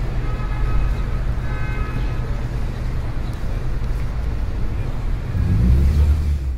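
A steady low rumbling noise, with faint held tones in the first couple of seconds. The rumble swells near the end, then cuts off abruptly.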